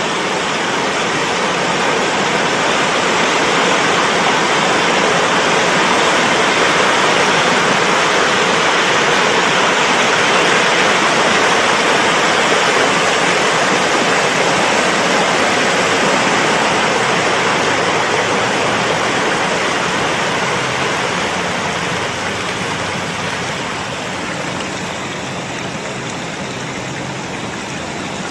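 Swamp water churning and rushing in a steady, loud roar as trees sink and the water surface is disturbed, swelling over the first few seconds and easing toward the end.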